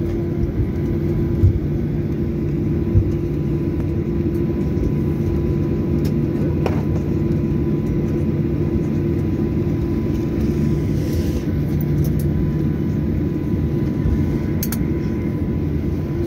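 Jet airliner's engines running at ground idle while it taxis, heard from inside the passenger cabin as a steady drone with a constant hum.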